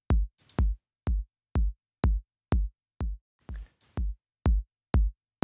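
Looped electronic kick drum sample hitting steadily about twice a second through Logic Pro X's Compressor plugin. Each hit is sharp at the start and falls in pitch. A few hits near the middle come through quieter as the compressor model is switched from Studio VCA to Classic VCA.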